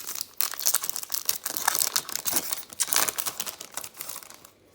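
Foil trading-card pack wrapper being torn open and crinkled by hand, a dense crackly rustle with quick sharp crackles that dies away just before the end.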